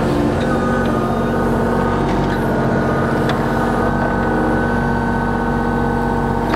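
Kubota KX033-4 mini excavator's diesel engine running steadily as the upper structure swings around, with a steady high hydraulic whine coming in about half a second in. A few faint clicks are also heard.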